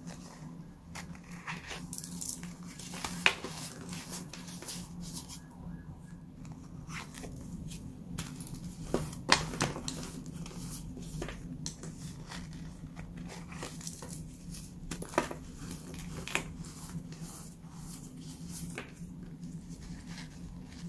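Hands crushing and crumbling a dried baking soda cake topped with sprinkles: irregular dry crunches and crackles, with sharper cracks about three, nine and fifteen seconds in, over a steady low hum.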